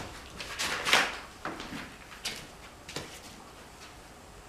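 Wooden bed frame being handled and shifted: a scraping rustle with a sharp knock about a second in, then a few light knocks and ticks.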